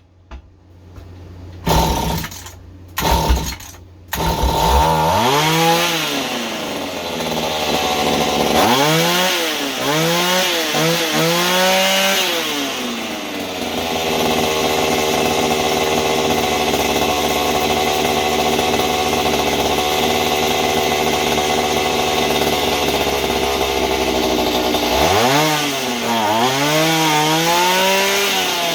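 Mantis mini tiller's small engine sputters in a few short bursts, then catches and runs. It revs up and down several times, holds a steady fast idle, and revs again near the end: it won't settle into a proper idle while the carburetor is being adjusted.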